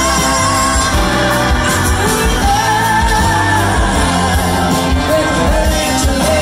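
Live rock band with electric guitars, drums and a horn section playing loud, a woman singing lead with wavering held notes over it, heard from within the crowd.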